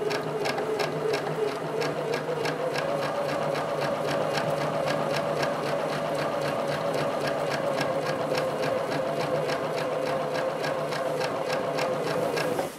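Domestic sewing machine free-motion quilting: the motor running at a steady speed with the needle ticking evenly, the pitch rising slightly about three seconds in, then stopping abruptly near the end.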